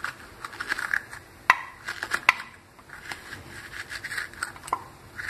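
A small metal spoon scraping the seeds out of a slit pointed gourd (parwal), with irregular scraping and scattered clicks. Two sharper metal clicks come about a second and a half and two seconds in.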